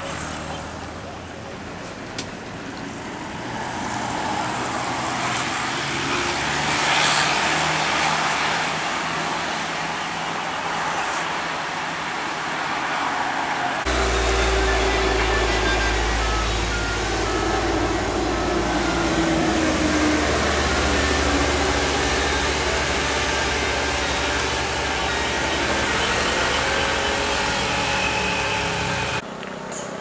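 Tour buses driving past on a road: engine and tyre noise swell as a bus goes by about seven seconds in. About halfway through the sound changes abruptly to a closer, heavier low diesel-engine rumble from another bus.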